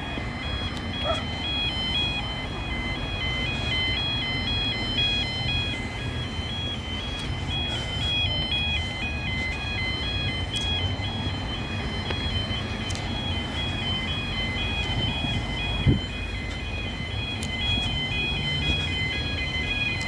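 An electronic two-tone warning alarm switches back and forth between two high tones about twice a second throughout, over the low rumble of a 22000-class diesel railcar creeping along at walking pace and road traffic. A single thump sounds about sixteen seconds in.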